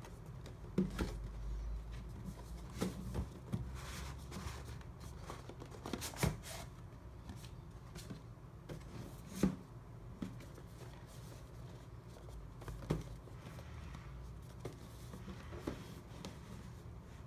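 Cardboard product boxes being handled and opened: sliding and rustling, with scattered light knocks and clicks as boxes are set down on a wooden table.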